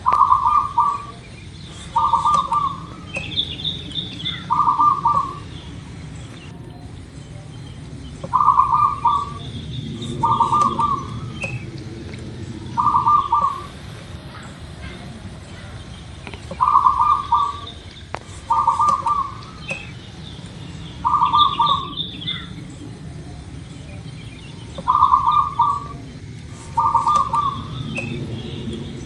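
Zebra dove (perkutut) cooing: short trilled coo phrases repeated about every two seconds in sets of three, with a longer pause between sets. Faint higher chirps of other small birds and a steady low hum run underneath.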